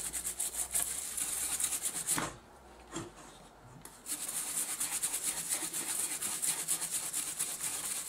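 Brush wet with isopropyl alcohol scrubbing excess flux off the soldered side of a TV power-supply circuit board, in rapid back-and-forth strokes. The scrubbing stops a little after two seconds in and starts again at about four seconds.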